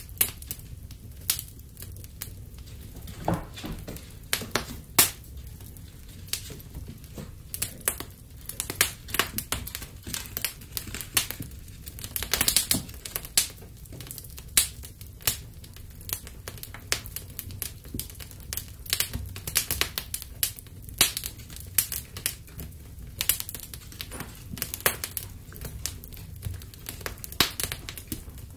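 Wood fire crackling, with irregular sharp pops and snaps throughout over a low steady rumble.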